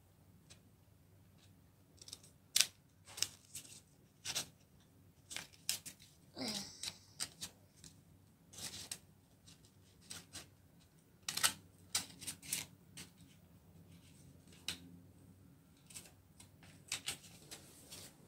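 Small child's scissors snipping paper in short, irregular cuts along curvy lines, each snip a faint click. About six seconds in, a brief gliding mouth noise from the child.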